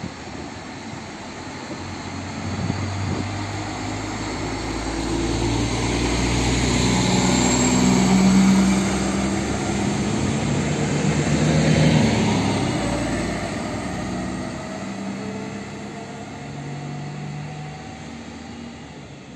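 SA134 diesel multiple unit pulling out and accelerating past: its diesel engines run under load, growing louder as the train comes close and then fading as it moves away.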